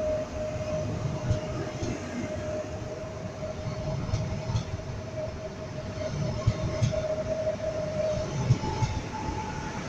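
Passenger train coaches rolling past along a station platform: a steady rumble of wheels on rail with a few sharp clicks, and a steady whining tone that gives way to a higher one near the end.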